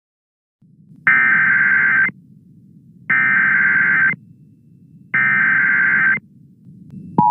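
Emergency Alert System SAME header: three one-second bursts of raspy data tones, about a second apart, over a faint low hum. Near the end the steady two-tone EAS attention signal begins.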